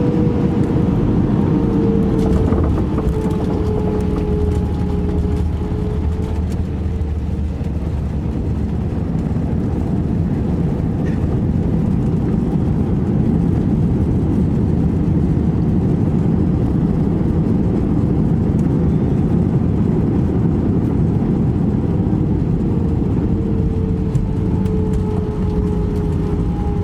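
Cabin noise aboard an Airbus A319 jetliner: a steady low rush of airflow and engines, with a faint engine whine that dips slightly in pitch a few seconds in and comes back near the end.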